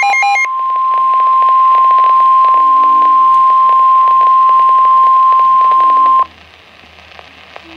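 NOAA Weather Radio emergency alert: a brief burst of stepped digital data tones, the end of the SAME header, then the 1050 Hz warning alarm tone, one steady high tone held for about six seconds and cutting off sharply. It signals that a warning bulletin, here a severe thunderstorm warning, is about to be read.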